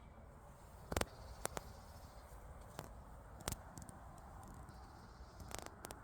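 A few scattered sharp clicks and knocks, the loudest about a second in, over a faint steady background hiss.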